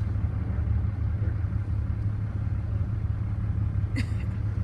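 Steady low engine rumble, with a short click about four seconds in.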